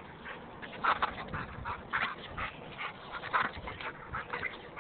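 Excited young dog whimpering and yipping in short bursts, about once a second, while playing for a ball.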